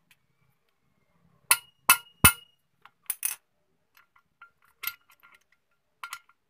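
Steel motorcycle transmission parts clinking and tapping as a shaft is worked into place in the open gearbox: three sharp ringing metal taps about a second and a half in, two more near three seconds, then lighter clicks.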